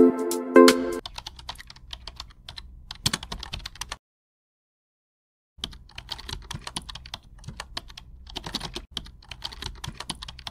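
A short phrase of chiming musical notes ends about a second in, then rapid computer keyboard typing clicks. The typing stops for about a second and a half midway, then resumes.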